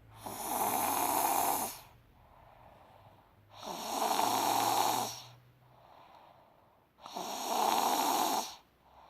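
A person snoring: three long, rasping breaths, each about a second and a half, coming in a steady rhythm about every three seconds.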